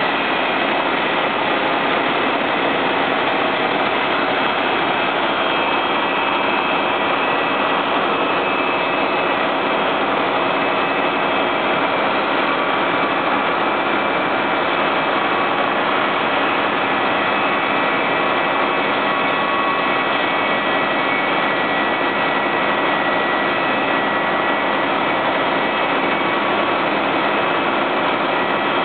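Fire engine's engine running at a steady speed to drive its water pump for the hoses: a loud, even drone with faint whining tones on top.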